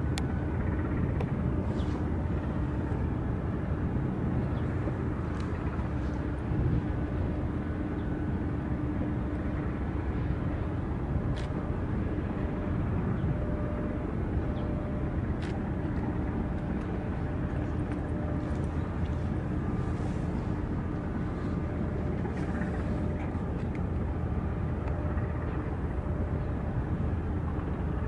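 Steady low harbour rumble with a constant, unchanging hum, and a few faint ticks.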